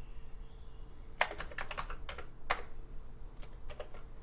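Keystrokes on a Commodore 64 keyboard: a quick cluster of presses a little over a second in, then a few single, spaced-out strokes, as the SAVE command is typed in to store a program on cassette.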